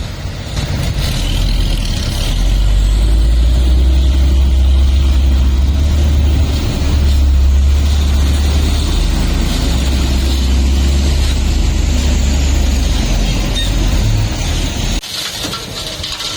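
Heavy-equipment diesel engine running steadily under load with a loud, deep drone, which drops away abruptly about fifteen seconds in.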